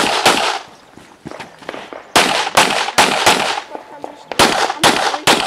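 Pistol shots fired in quick strings of two to four, a fraction of a second apart, with short pauses between strings as the shooter moves between targets. Each shot is a sharp crack with a brief ring after it.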